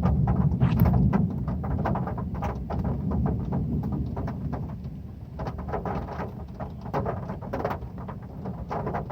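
Heavy rain on a metal roof: a dense patter of many sharp ticks and taps from the drops over a low rumble, loudest in the first second or so and easing a little after.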